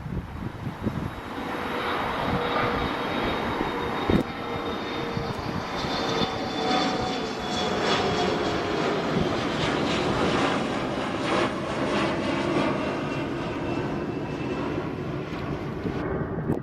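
Regional jet's engines at takeoff power as the airliner takes off, a loud steady rush building over the first couple of seconds, with faint whining tones that slowly drop in pitch. A single sharp click about four seconds in.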